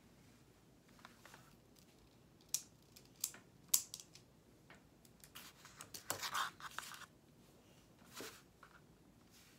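A few sharp clicks and taps of drawing tools being handled on a table, then a brief scraping rustle and one more soft tap near the end.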